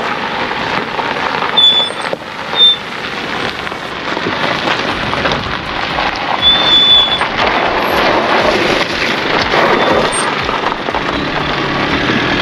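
Mercedes-Benz Sprinter van driving slowly over loose gravel and rough ground, engine running and tyres crunching on stones, getting louder as it comes closer. A few short high squeaks sound over it.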